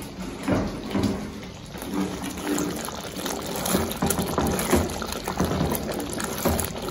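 A pot of tamarind-based herbal gravy (kuzhambu) boiling, with irregular bubbling pops and gurgles.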